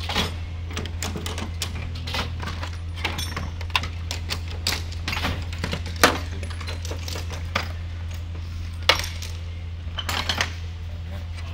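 Metal hand tools (wrenches and pliers) clinking and rattling against each other as they are handled in a steel toolbox drawer, in a string of sharp clicks, the loudest about six seconds in and another near nine seconds. A steady low hum runs underneath.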